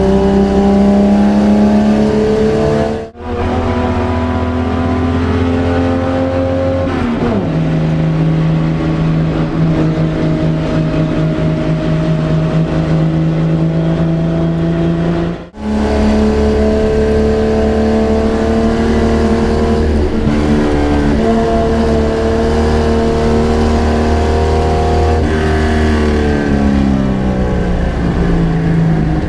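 Holden HQ race car's six-cylinder engine heard from inside the car, running hard at racing speed. The engine note drops about seven seconds in and falls again near the end as the car slows. The sound cuts out briefly twice, about three seconds in and about halfway through.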